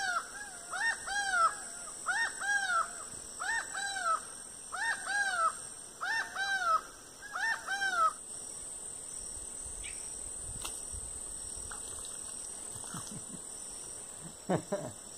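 Laughing falcon (acauã) calling: paired arched notes repeated about every second and a half, then stopping about eight seconds in. In folk belief its call foretells a death.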